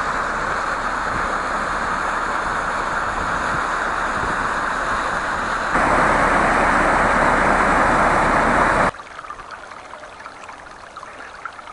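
Steady rushing noise that steps louder about six seconds in, then cuts to a quieter, thinner rushing of a forest stream for the last few seconds.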